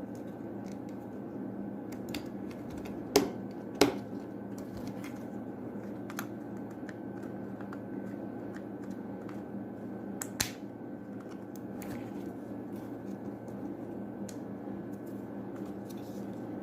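A few sharp plastic clicks and taps from handling the opened computer mouse's shell and parts as it is reassembled after a click-switch replacement, two loudest close together about three seconds in and another near the middle, over a steady low hum.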